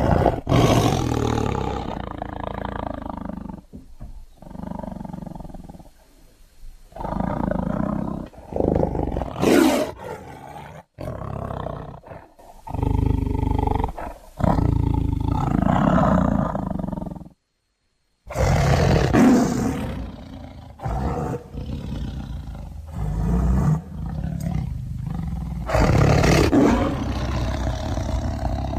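Big-cat roars: creature sound effects for the prehistoric cat Dinofelis, built from leopard and tiger recordings. They come as several separate loud roars, with a brief break of silence a little past halfway.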